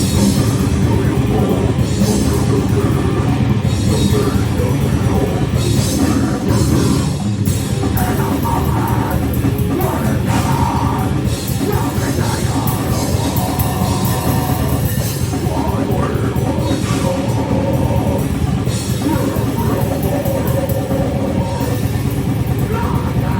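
Loud heavy rock music with a drum kit, playing without a break.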